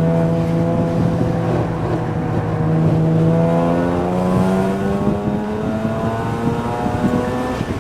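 Car engine under steady acceleration on track, its pitch rising slowly and evenly, with a brief dip near the end.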